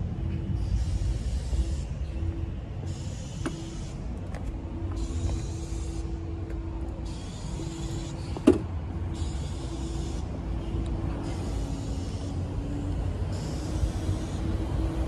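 Nissan VH41DE 4.1-litre V8 in an R32 Skyline sedan idling with a noisy, uneven exhaust rumble. One sharp click a little past halfway.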